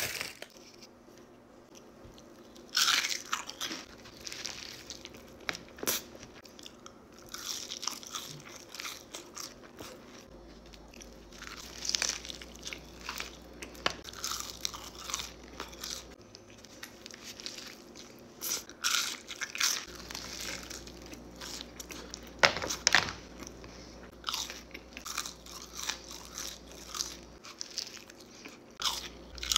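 Close-miked crunching bites into fast food, a burger and fried sides, with wet chewing in between; the crunches come irregularly, a few of them noticeably louder.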